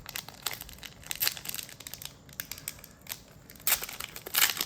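A trading-card booster pack wrapper being torn open and crinkled in the hands: irregular crackling and tearing, busiest near the end.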